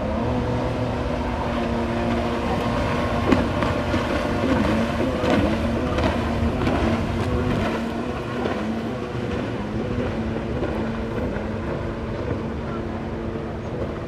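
Jet ski engine running hard at speed, its steady drone dipping and rising in pitch a few times as the craft turns and hops the waves, with a sharp knock about three seconds in.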